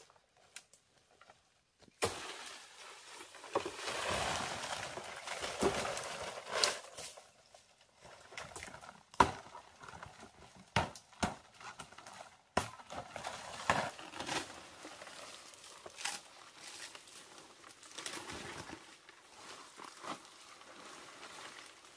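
Leaves and branches rustling and crackling as they are handled, with scattered sharp snaps and knocks. It starts abruptly about two seconds in, after near quiet.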